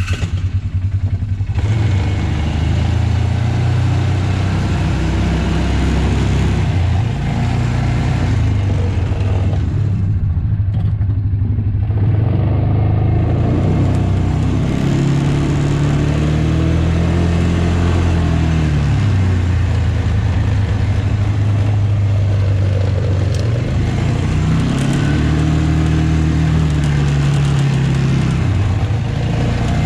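Large farm tractor's diesel engine running, its pitch rising and falling twice as it is revved up and then eased back.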